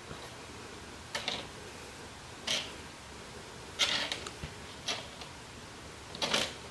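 Small metal screws clicking and rattling as they are sorted through by hand, in short bursts about every second.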